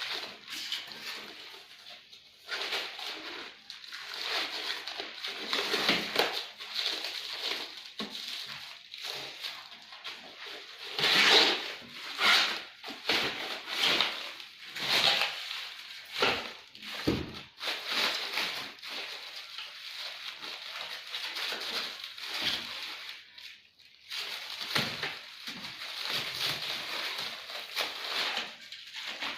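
Irregular rustling and crinkling as packaging is handled, in uneven bursts with a louder crackle about eleven seconds in.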